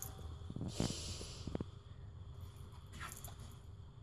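Faint rustling and scuffing of a cat's fur and body rubbing on a concrete paver as she rolls on her back, louder about a second in, with a few soft knocks.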